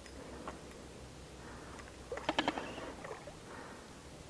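Faint clicks and squeaks from a spinning reel being worked while fighting a big walleye, with a short cluster of clicks about two seconds in.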